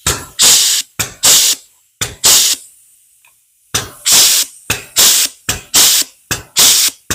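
Astro Pneumatic 605ST air flange-and-punch tool cycling about seven times, each stroke a short clack followed by a hiss of exhaust air. It is stepping a flange into thin sheet metal a bit at a time, with a pause of about a second about 3 s in.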